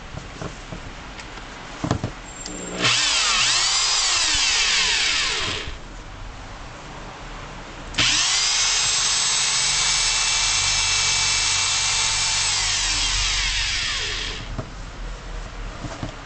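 Makita HR1830F rotary hammer drill's electric motor run twice. A short run near the start rises in pitch as it spins up, then stops. A longer steady run begins abruptly midway and winds down with a falling whine near the end.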